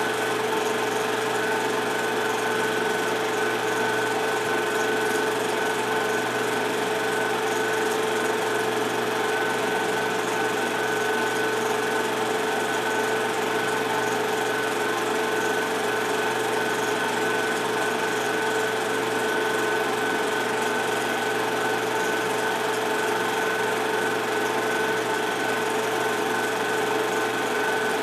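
Film projector running: a steady mechanical whir with a constant hum, unchanging.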